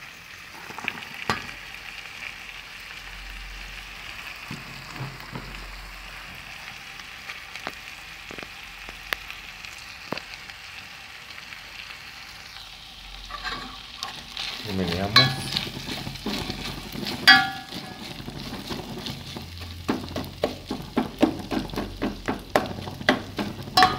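Onion, corn kernels and garlic frying in an enamel pot, a steady sizzle. From a little past halfway, a plastic spoon stirs and scrapes the pot in quick repeated strokes as the chiles and bouillon cube are mixed in.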